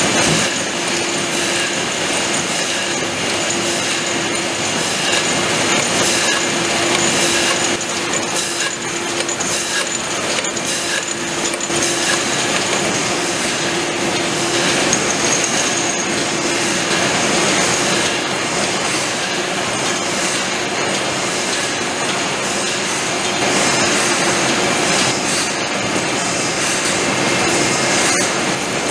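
Aluminium aerosol can production line machinery running: a dense, steady mechanical clatter with a constant humming tone and continual small clicks.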